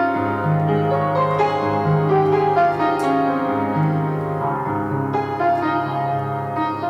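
Piano music: held notes over low bass notes, with the notes changing about once a second.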